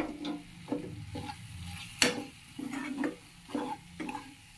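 Steel spatula stirring and scraping thick masala around a kadai in a quick run of short scrapes, the loudest about two seconds in. A faint sizzle of the masala frying sits underneath.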